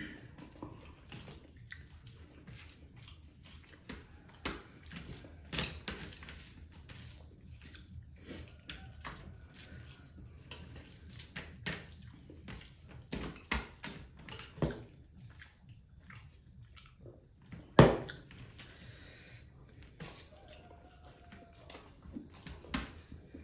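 Eating sounds: wet squishing and scattered clicks of hands mixing rice and fish curry on steel platters, with one louder sharp knock about three-quarters of the way through.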